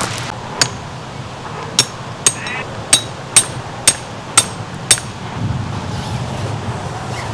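A hammer driving a metal stake into gravel ground: about eight sharp, ringing metallic strikes, the later ones coming roughly every half second, then the hammering stops.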